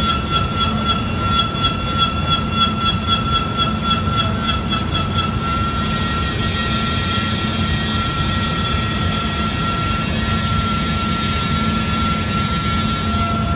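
Northwood TA125MT 3-axis CNC router running, its spindle giving a steady high whine over a low rumble. For about the first five seconds the sound pulses about three times a second, then settles into a steadier, higher hiss.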